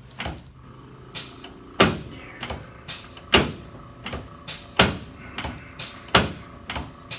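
A series of sharp clacks, about one to two a second and uneven in strength, from a chiropractic adjustment being given to a patient lying on his back.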